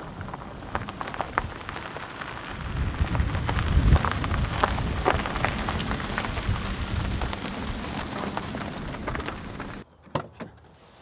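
Wind buffeting the microphone, with dry grass stalks crackling and rustling against it. The sound is loudest about four seconds in and cuts off suddenly near the end.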